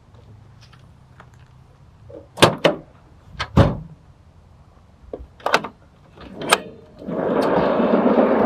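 A few sharp clicks and knocks of the truck's camper shell hatch being unlatched and lifted and the tailgate being lowered, then, about seven seconds in, a long steady rolling noise as a heavy plywood drawer is pulled out on skateboard-bearing slides.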